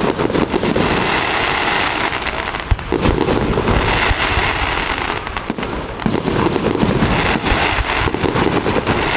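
Fireworks display: a continuous barrage of bangs and crackling from aerial shells bursting, many reports every second.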